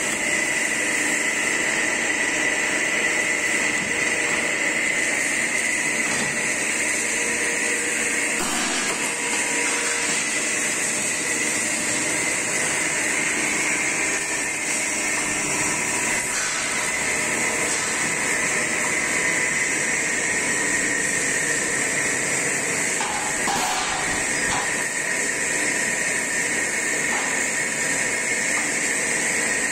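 Steady machine drone and hiss of a CNC angle-steel punching and cutting line's hydraulic power unit and oil-cooler fan running, with a few brief knocks.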